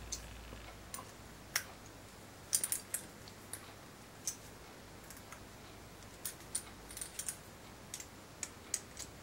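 Light, irregular metallic clicks of a nipple wrench fitting onto and turning the percussion nipples in an Uberti 1851 Colt Navy revolver's steel cylinder as they are snugged down by hand.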